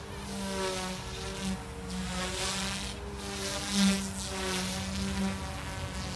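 OMPHOBBY M2 Explore small electric RC helicopter in flight: a steady buzzing whine from its motor and spinning rotors, its pitch shifting slightly. Rushing swells of rotor noise come and go, loudest about four seconds in.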